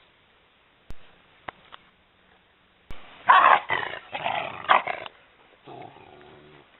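Maremma sheepdogs barking and growling: a run of several loud, sharp barks from about three seconds in, then a lower, quieter growl near the end.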